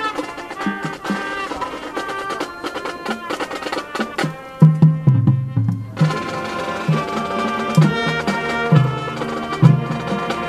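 High school marching band playing: brass over percussion, with many sharp strikes. About four and a half seconds in, heavy low drum hits come in and become the loudest part.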